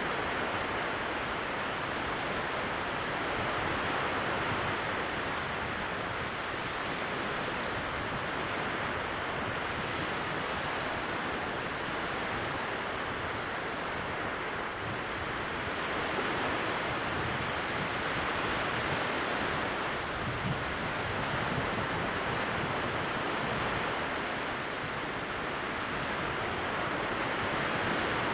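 Calm sea at very low tide: small waves breaking softly, heard as a steady wash that swells and eases gently every few seconds.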